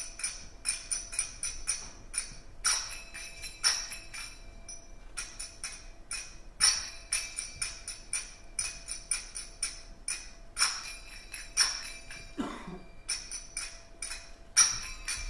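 Finger cymbals (zills) played live in a steady pattern of quick, ringing metallic strikes, several a second, with a louder accented strike about every four seconds.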